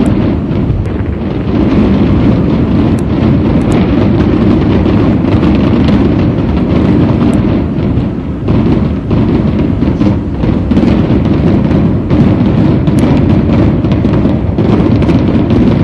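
Many fireworks going off at once, their overlapping bangs merging into a continuous rumble, with occasional sharper cracks.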